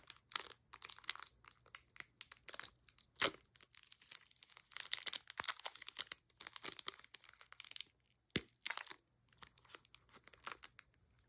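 Plastic candy packaging being torn open and crinkled by hand, in irregular bursts of crackling with short pauses.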